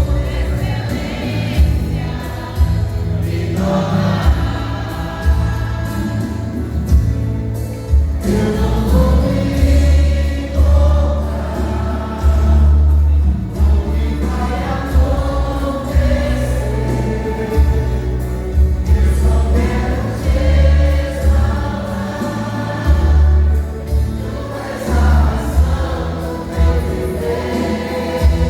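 A vocal group singing a gospel worship song in harmony, over accompaniment with a heavy bass line.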